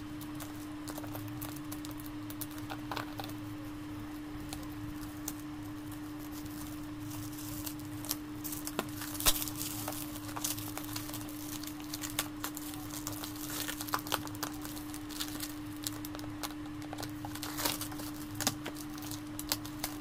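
Clear plastic wrap crinkling and tearing as it is cut with scissors and pulled off a cardboard box, in irregular crackles that get busier about halfway through. A steady low hum runs underneath.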